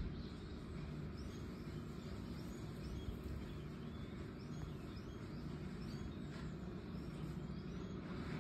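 Outdoor background: a steady low rumble with faint, short high bird chirps scattered through it.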